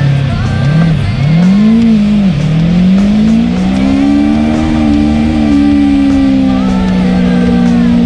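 Suzuki SV650 V-twin motorcycle engine accelerating through the gears: its pitch rises and drops back a few times in the first couple of seconds, then holds steady. Music plays over it.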